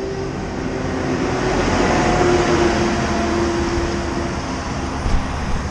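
Large wheel loader's diesel engine getting louder as it drives toward the camera on the road, its steady engine tones over a rush of road noise. The sound is loudest about two to three seconds in.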